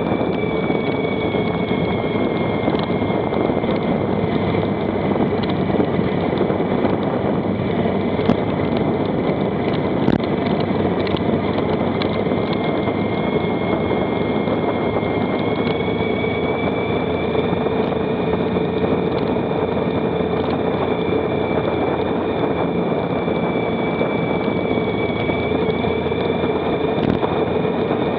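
Motorcycle being ridden at steady speed: the engine runs under a constant wash of wind noise, its note dipping slightly and rising again about halfway through.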